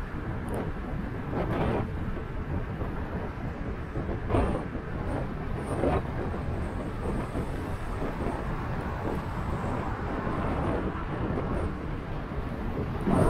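Road and engine noise of a car driving, picked up by its dash cam, with a few short knocks, the loudest near the end.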